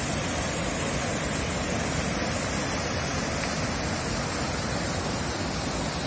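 Muddy river in spate rushing through rocky rapids below a concrete weir, with water gushing out of outlet pipes in the weir: a steady, unbroken rushing.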